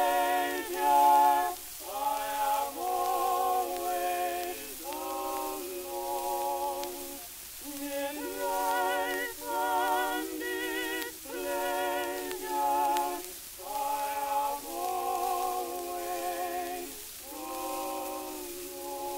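Male vocal quartet singing unaccompanied in close harmony on a 1909 Victor disc recording: held chords with vibrato, broken by short pauses between phrases. The sound is thin with no bass, over the disc's surface hiss.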